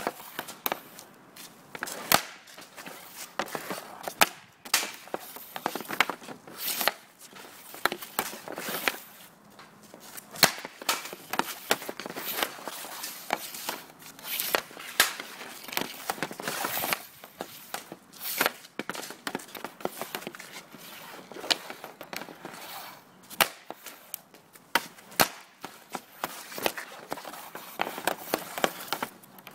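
Composite ice hockey sticks shooting pucks off a shooting pad, over and over: sharp irregular cracks of blades and pucks striking the pad, with the puck-on-pad clatter between shots.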